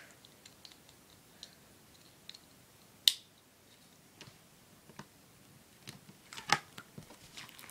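Craft knife working up the edge of a strip of duct tape on a plastic cutting mat: scattered light clicks and ticks, one sharp click about three seconds in, and a cluster of clicks near the end as the tape is lifted.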